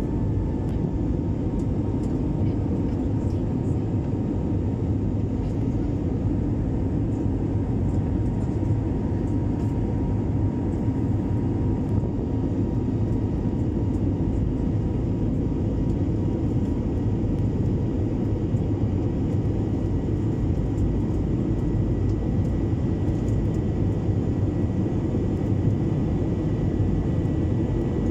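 Airliner's turbofan engines and rushing air heard from inside the cabin beside the wing during the climb after takeoff: a steady, deep rush with a faint even whine on top and no change in pitch.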